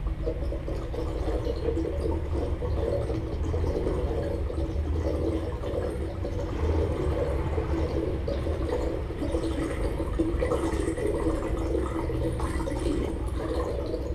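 Amplified plant instrument played by hand through loudspeakers: a continuous rushing, rustling texture over a low rumble.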